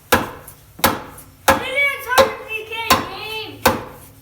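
About six hammer blows, roughly one every 0.7 s, on steel chisels driven in behind a 1947 Farmall A's crankshaft pulley, each a sharp strike with a short ring. The pulley is seized on the crankshaft and is being driven off a little at a time.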